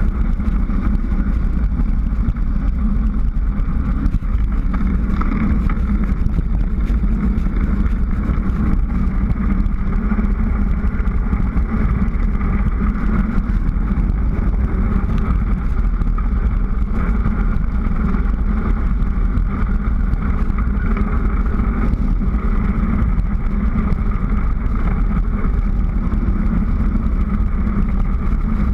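Steady rushing rumble of wind and tyres on asphalt, picked up by a GoPro mounted on a mountain bike during a fast road descent.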